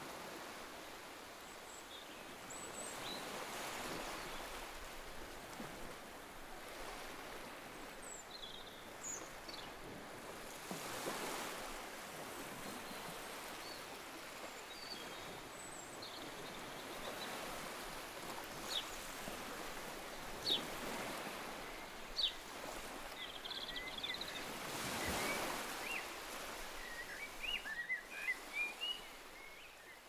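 Ocean waves washing onto the shore, a steady hiss that swells and ebbs every several seconds. Birds chirp on and off above it, with a quick run of chirps near the end.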